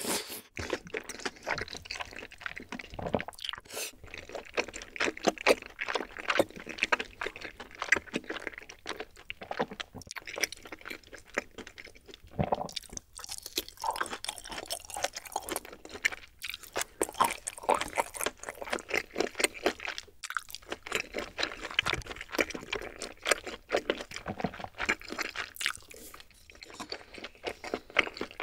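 Close-miked eating sounds: a person slurping and chewing rosé tteokbokki (chewy rice cakes and sausage in a creamy sauce), a dense run of irregular wet mouth clicks and smacks.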